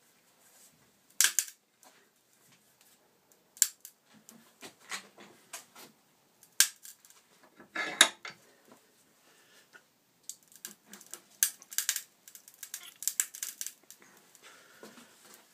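Black & Decker 3.6 V cordless screwdriver's plastic housing creaking and cracking as a bench vise is tightened on it: a few sharp single cracks, then a quicker run of them in the last few seconds.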